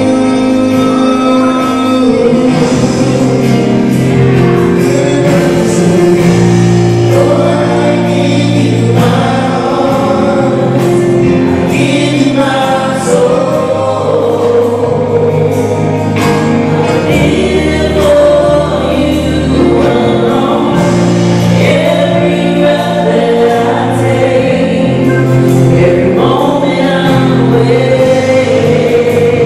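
Gospel choir singing with instrumental accompaniment.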